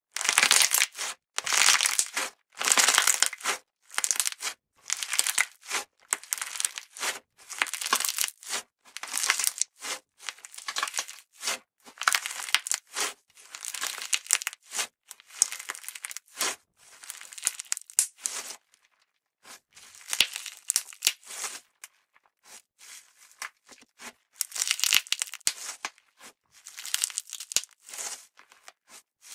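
Purple sprinkle slime being squeezed and kneaded in both fists: a run of short, wet, noisy squishes, one every second or so, with a brief pause about two-thirds of the way through.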